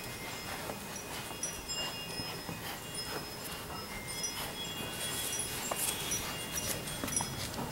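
Labrador Retriever puppies scuffling and pawing at a toy, with faint scattered clicks and rustles. Many short, high ringing notes come and go over it.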